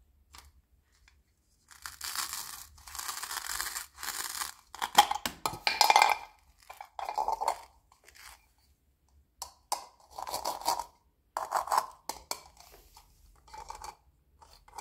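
Thin plastic packaging crinkling and tearing in several bursts as plastic toy vegetable pieces are unwrapped, with light clicks of hard plastic pieces between; the loudest crackling comes about five to six seconds in.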